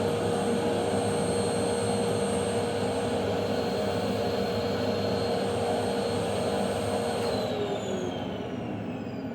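Electric motor with a fan running with a steady rush of air and a high whine. It is switched off about seven seconds in, and the whine falls in pitch as the motor winds down.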